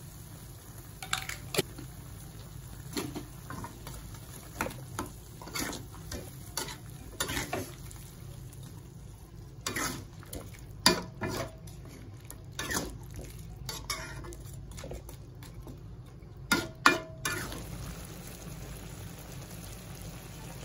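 A metal spatula scraping and clinking against a wok as meat simmering in sauce is stirred, in irregular strokes with the loudest knocks about halfway through and again near the end. A steady low background noise runs underneath.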